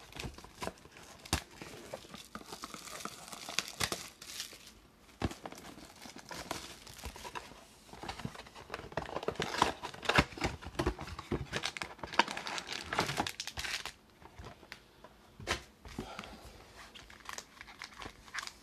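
Plastic wrap crackling and tearing as a cardboard trading-card box is unwrapped and opened, with rustling and light knocks as its foil card packs are handled. The crackling is densest a little past the middle and thins out near the end.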